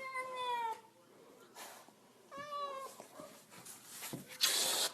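Domestic cat meowing twice: a long, slightly falling meow at the start and a shorter one about two and a half seconds in. A short burst of hiss-like noise follows near the end.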